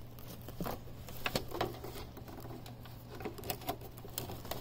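Power cords being handled and a plug worked into a power strip: scattered light clicks and plastic rattles over a steady low hum.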